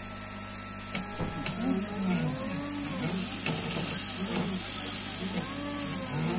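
CNC 3018 stepper motors whining in pitches that rise and fall as the laser head speeds up and slows down along a curved cut, starting about a second in. Underneath runs a steady hum and high hiss from the air-assist pump and the laser head's cooling fan.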